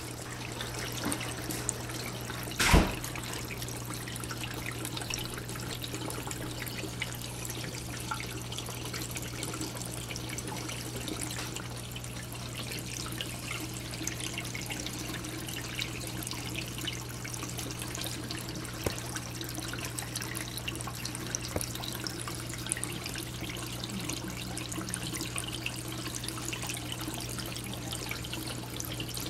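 Reef aquarium water circulation: water trickling and splashing through the filtration over a steady low pump hum. A single sharp knock about three seconds in.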